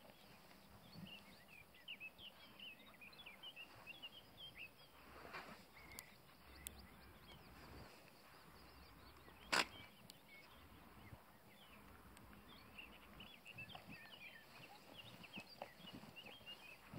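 Faint twittering of small birds in two spells, one at the start and one near the end, over a quiet outdoor background. A single sharp click about halfway through is the loudest sound.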